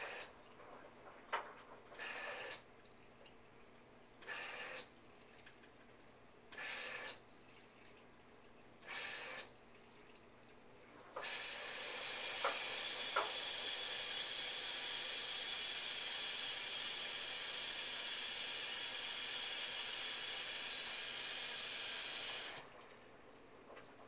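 Front-loading washing machine taking in water: five short spurts of water about two seconds apart, then a steady rush of water for about eleven seconds that cuts off sharply.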